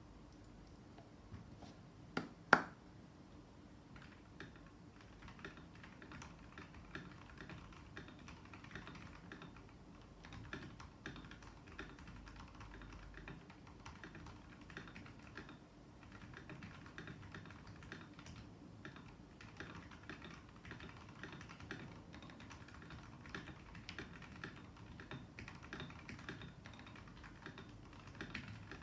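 Typing on a mechanical keyboard with lubed Kailh Box Red linear switches: a fairly quiet, steady patter of keystrokes, with two louder clacks about two seconds in. The switches are lubed with Krytox 205g0 and their springs with Krytox 105.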